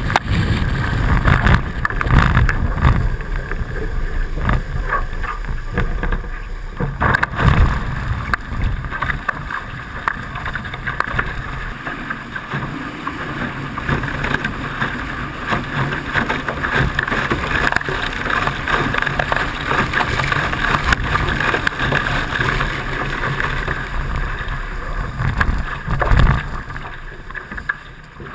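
Water rushing and slapping against the hulls of a Hobie 16 catamaran under sail, with wind buffeting the microphone. The buffeting is heaviest in the first half, and there are louder splashes about seven seconds in and again near the end.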